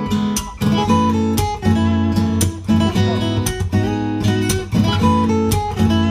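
Background music: a rhythmic guitar track with strummed chords, the chords changing about twice a second.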